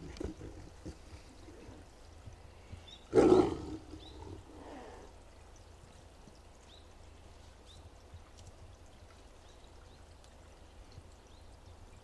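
An Amur tiger giving one short, loud roar about three seconds in.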